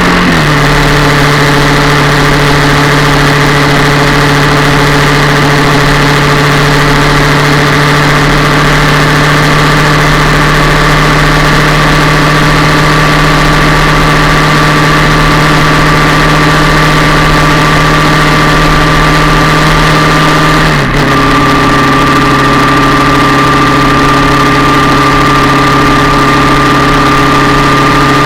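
Yamaha MT-07's parallel-twin engine, heard up close at the engine, running loud and steady. Its note drops slightly in pitch just after the start, then again about 21 seconds in with a brief dip in level.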